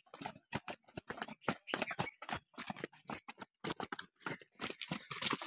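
Quick, irregular footfalls of several runners in running shoes coming down concrete steps and gravel, several strikes a second.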